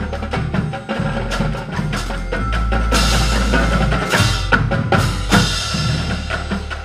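Marching drumline playing with its front ensemble: rapid snare and tenor drum strokes over bass drums, with pitched pit instruments sounding underneath. Cymbals crash about three seconds in and again around five seconds.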